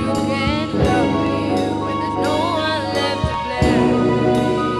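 Rock band playing live: a female lead voice sings with a wavering, vibrato-like line over sustained electric guitars and keyboard, with regular drum strikes.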